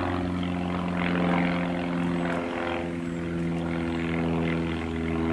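A steady engine drone: a low hum with several pitched overtones, dipping slightly in pitch about two and a half seconds in.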